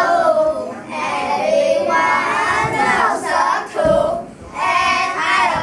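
A group of children singing together in unison, in short phrases with brief breaks about a second in and near four seconds.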